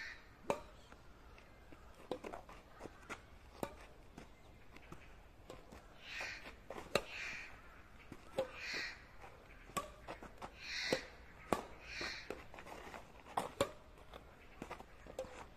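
Badminton rally: sharp pocks of rackets striking a shuttlecock every second or two, some loud and close, some faint and far. Crows caw several times in the background through the middle of the rally.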